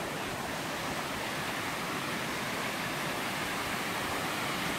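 Water rushing steadily as it spills over a low concrete weir into a stream pool.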